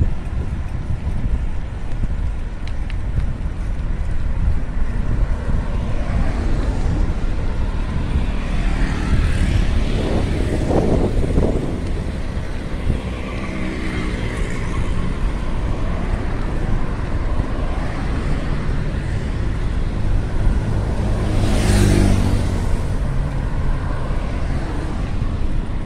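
Road traffic on a city avenue heard from a moving bicycle, over a steady low rumble. One vehicle swells past about ten seconds in, and another passes close about twenty-two seconds in.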